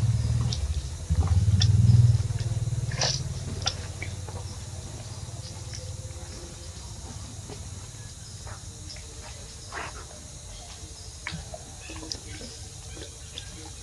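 A low rumble, loudest about two seconds in and fading after about three seconds, followed by faint, scattered short chirps and clicks.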